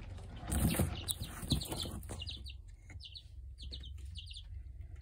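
Baby chicks peeping in a brooder: many short, high peeps in quick runs. A burst of rustling comes first, in the opening couple of seconds.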